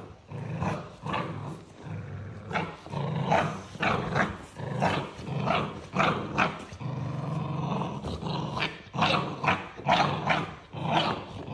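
XL Bully puppies play-growling with a low steady rumble, over many short, sharp yaps and barks that come several a second as they wrestle.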